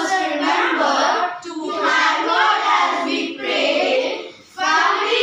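A group of children reciting a poem in unison in a sing-song chant, phrase by phrase, with short breaks between lines.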